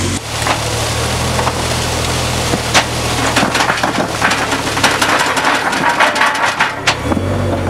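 Paving bricks knocking and clattering against each other as they slide off a Tiger-Stone paving machine and settle into a herringbone surface, with many sharp knocks throughout. Under them runs the machine's low, steady motor hum, which drops away about halfway through and returns near the end.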